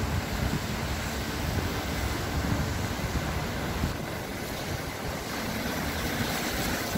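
Steady rushing noise from an electric bicycle being ridden: wind buffeting the handlebar-mounted phone's microphone over a low road and tyre rumble.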